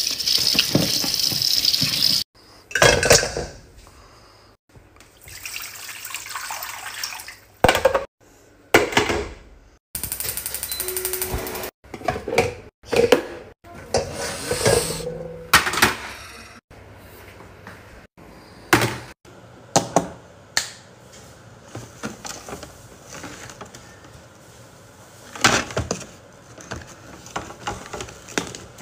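Tap water running onto a crab in a stainless steel sink, then a string of short cut-together kitchen and eating sounds: knocks, clatter and crab-shell clicks and cracks.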